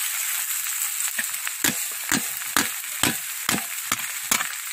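Metal spoon knocking on an upturned perforated aluminium strainer to shake boiled rice out into the pot, about two knocks a second, over a steady hiss.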